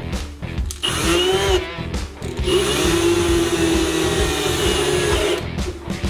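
Cordless brushless drill-driver running at the mounting holes of a steel barrel-bolt latch on a wooden board: a short run about a second in, its pitch rising and falling, then a longer steady run of about three seconds, over background music.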